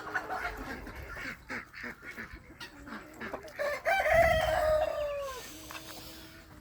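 Chickens clucking with short calls, then a rooster crows once about four seconds in, one long call of about a second and a half that falls slightly in pitch at the end.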